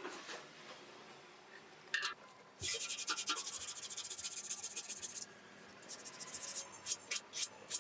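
Sanding on a motorcycle fuel tank: fast, raspy rubbing strokes for about two and a half seconds in the middle, then a few short scrapes near the end.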